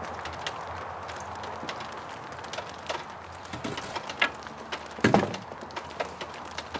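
Wooden vertical post of a log house's window casing box being worked out of the opening: scattered wooden knocks and clicks, the loudest a sharp knock about five seconds in, over a steady hiss.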